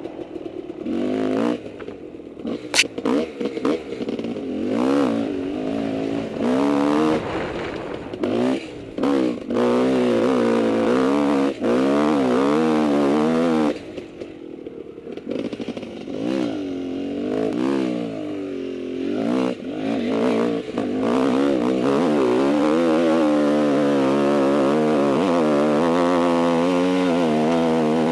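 Husqvarna WR300 two-stroke dirt bike engine revving up and down as it is ridden over a rough trail, with clatter and sharp knocks in the first ten seconds or so. In the last third it holds a steady, high-revving pitch.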